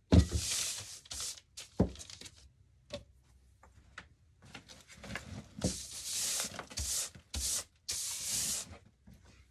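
Brushing and wiping strokes sweeping up sanding dust and glitter from a work surface, in short hissing bursts, with a few knocks of tools or pieces being set down, the loudest right at the start.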